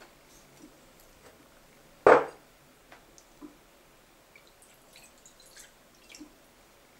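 A dish set down on the table with a single clunk about two seconds in, then light clinks and the faint dripping trickle of water poured from a glass into a plate.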